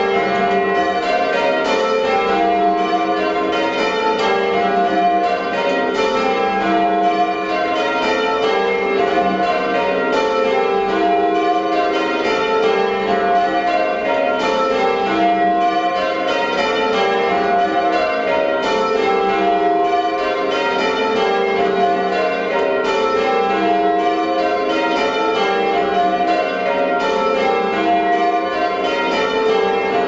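Church bells ringing rounds: the back six of a ring of eight tower bells, with a 15-0-18 cwt tenor, striking in steady repeating order down the scale, heard from the ringing chamber.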